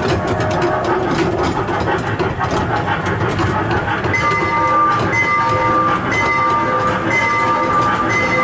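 Small ride-on train running along its track, with wheels clacking and the motor rumbling steadily. From about four seconds in, a chord of steady tones sounds on and off roughly once a second.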